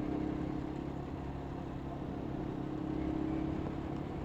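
A vehicle's engine running steadily at an even speed, a low hum with road noise, swelling slightly about three seconds in.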